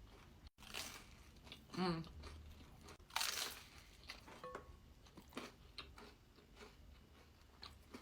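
Close-up crunching bites and chewing of sourdough bread with pesto and tomato, the loudest crunch about three seconds in. A brief hummed vocal sound comes about two seconds in.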